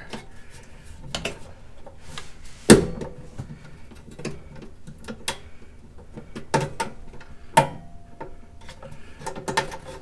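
Scattered clicks and knocks of a Klein stubby 6-in-1 screwdriver and the hand working against the sheet metal inside a gas furnace, trying to back out the tight flame-sensor screw. The loudest is a sharp knock about three seconds in, with a few smaller knocks later.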